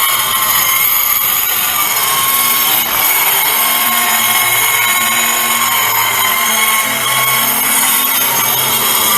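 LOMVUM electric mini circular saw running, its motor giving a steady high whine that dips and recovers slightly in pitch.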